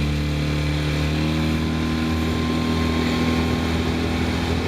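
Boat's outboard motor running steadily under way, with a noise of water and wind around it.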